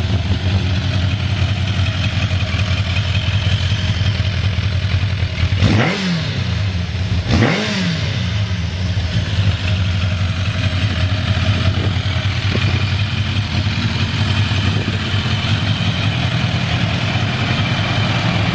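Kawasaki GPZ1000RX inline-four engine idling steadily, blipped twice in quick succession about six and seven and a half seconds in, each rev rising and falling back to idle. It runs evenly with no abnormal noises.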